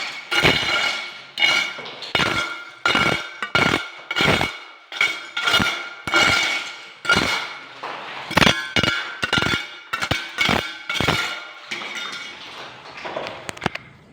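Hammer blows on metal, about two a second, each ringing at the same pitch, stopping shortly before the end.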